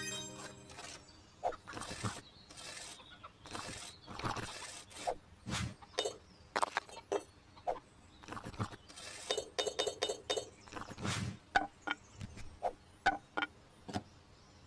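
Irregular clicks, knocks and clinks of small hard objects being handled and set down, several in quick succession with short pauses between.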